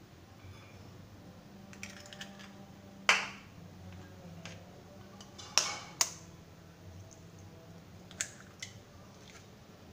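Eggs knocked against the rim of a stainless-steel mixer-grinder jar to crack them open: a few sharp knocks with a short metallic ring. The loudest comes about three seconds in, two more come close together in the middle, and a lighter one comes near the end.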